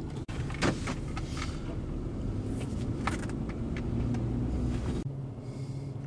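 Cabin noise of a 2004 Mercury Sable's 3.0 L DOHC V6 running, a steady low rumble with faint scattered clicks. About five seconds in it cuts abruptly to a steadier low hum with a held low tone.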